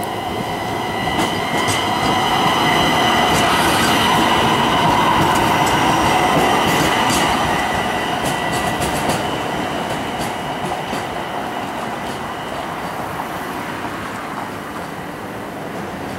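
Pittsburgh light rail car passing on street-running jointed-rail track, with a steady high wheel squeal and quick clicks of the wheels over the rail joints. It is loudest about four to seven seconds in as it goes by, and the squeal stops about nine seconds in as the car moves off.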